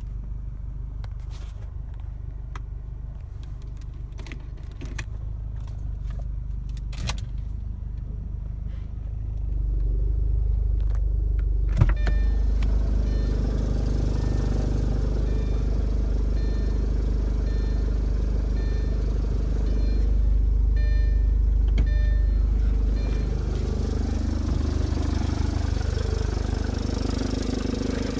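Audi A4 B6 1.8T turbocharged four-cylinder engine running, with irregular sharp clicks over a low rumble in the first half. The sound grows louder and steadier from about ten seconds in. It is an unidentified noise that the owner cannot place.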